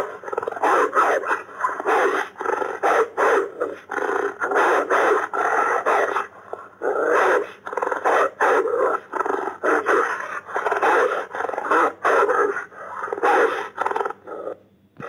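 Dire wolf sound effect of growling and snarling: a long run of short, rough bursts, several a second, that stops just before the end.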